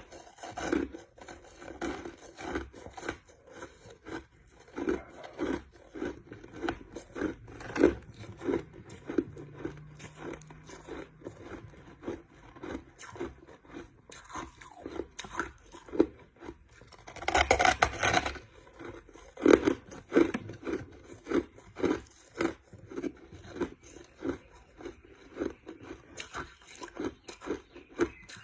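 Crushed ice being chewed: a steady run of short, crisp crunches, roughly two a second, with a longer, louder crunch about two-thirds of the way through.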